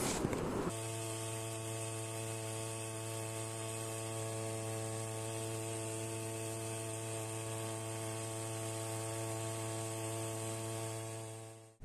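A steady droning hum made of several unchanging tones. It starts abruptly just under a second in and fades out just before the end.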